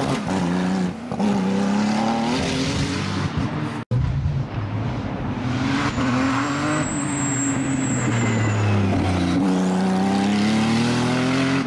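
Porsche 911 race car's twin-turbo flat-six engine accelerating hard uphill, rising in pitch through the gears with drops at each shift. A sudden cut about four seconds in, then it revs up again through more gears, with a high thin whistle midway.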